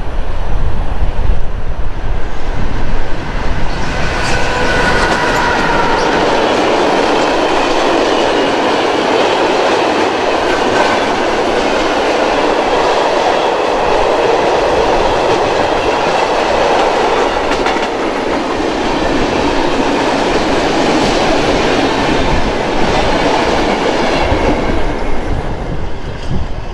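Freight train of covered hopper wagons passing close by at speed: a dense, steady rolling noise of steel wheels on the rails that builds suddenly about four seconds in, with a few brief high tones as the front reaches the microphone, and dies away near the end. Wind rumbles on the microphone at the start.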